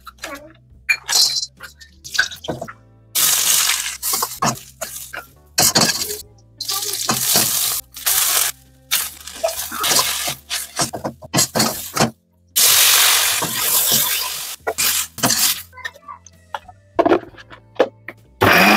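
Kitchen cooking sounds in quick succession: sharp clicks and clinks of ingredients and utensils, and several hissing bursts of about a second each, like ingredients sizzling as they go into a hot wok.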